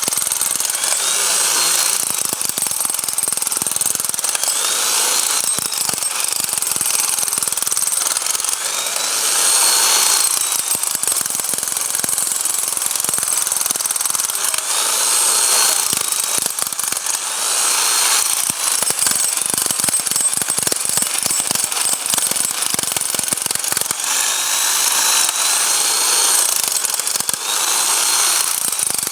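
Bosch hammer drill running in hammer action, with a rapid stream of blows under a high motor whine that rises and falls in pitch now and then.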